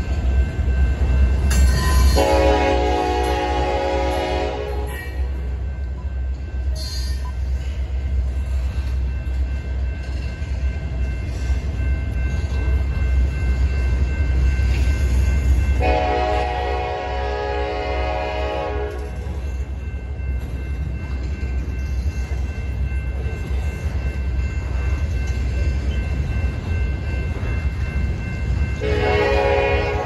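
Freight cars of a Canadian National train rolling past with a steady low rumble, while a diesel locomotive air horn sounds three times: a blast of about two seconds starting about two seconds in, a longer one of about three seconds starting about sixteen seconds in, and a short one near the end.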